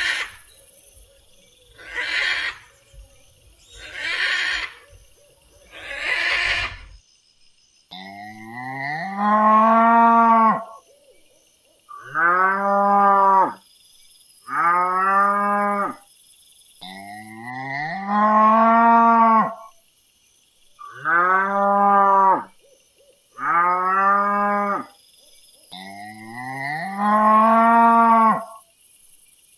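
Cattle mooing: seven drawn-out moos in a row, each about a second and a half to two seconds long and falling slightly in pitch. They follow a few short, hoarse animal calls in the first several seconds.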